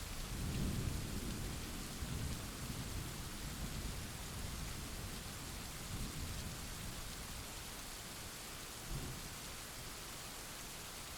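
Thunder rumbling over steady rain. A low roll swells just after the start and fades over the next few seconds, and two shorter, weaker rumbles follow later.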